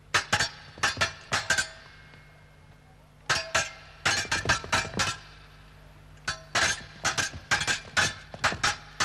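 Steel fencing blades clashing in quick flurries of ringing clinks: three bursts of several strikes each, with short pauses between them.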